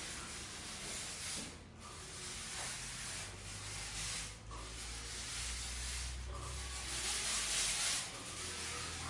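Fogging machine hissing as it sprays disinfectant fog, with a low steady hum underneath. The hiss breaks off briefly three times and is loudest near the end.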